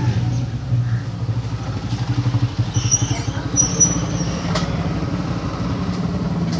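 An engine running steadily, with brief high chirps about three seconds in and a sharp click soon after.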